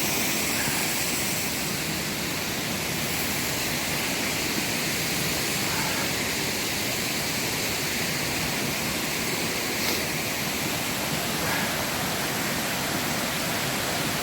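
Steady, even rush of a waterfall pouring into its pool.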